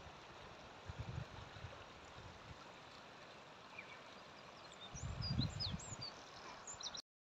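Faint seashore ambience: wind buffeting the microphone in low rumbling gusts, about a second in and again from about five seconds, with a few short high bird chirps near the end. The sound cuts off suddenly just before the end.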